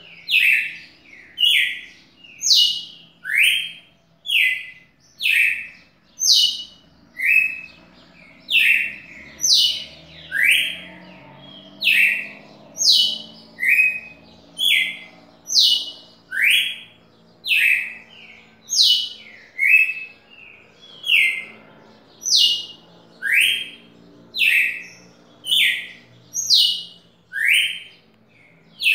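Caged red-cowled cardinal (galo-de-campina) singing continuously: a steady run of short, clear whistled notes, about two a second, alternating between higher and lower pitches.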